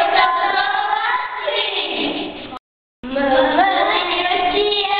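A group of children singing together in unison. About two and a half seconds in, the sound cuts off abruptly for half a second of silence, then children's voices start again.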